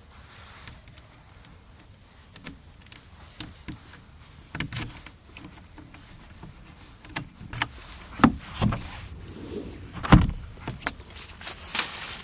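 Door latch and handle of a stump hunting blind being worked: a scattered series of clicks and knocks, the loudest a heavy knock about ten seconds in.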